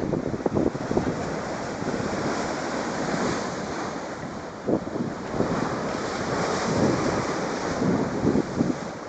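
Strong sea waves surging and breaking on the shore, with gusting wind buffeting the microphone.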